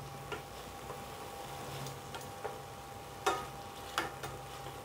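Onions and sauces frying in oil in a pan, sizzling steadily, while a spatula stirs and clicks against the pan a few times, two louder knocks about three and four seconds in.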